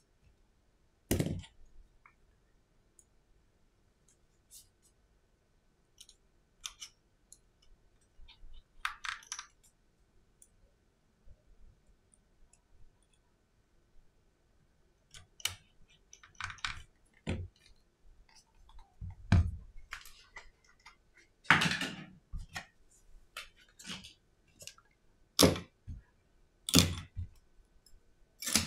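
Scattered clicks, taps and knocks from hands handling an iPhone 7 and a precision screwdriver on a rubber repair mat while the phone's bottom screws are driven in and the tool and phone are set down. The louder knocks come about a second in and several times in the last ten seconds.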